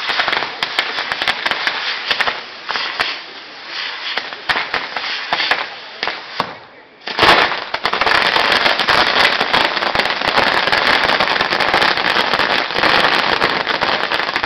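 Castillo (firework tower) burning: rapid, irregular crackling and popping of its firecrackers. After a short lull about seven seconds in, a sudden loud burst gives way to dense, continuous crackling.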